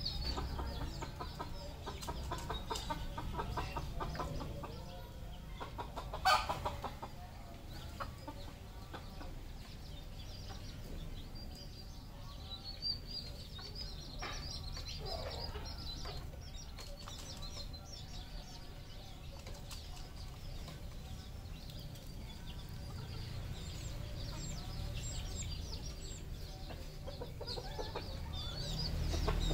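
Red junglefowl clucking and calling in scattered short notes, with a short louder noise about six seconds in.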